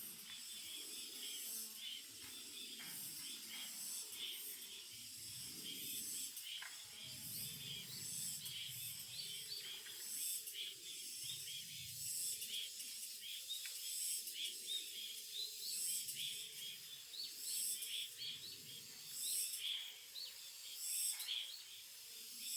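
Small wild birds chirping with many short calls, over a steady high hiss that pulses roughly every second.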